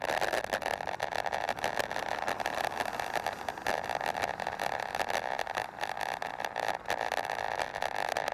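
Riding noise from a pedalled vehicle rolling along: a steady rolling hum with constant small rattles and clicks.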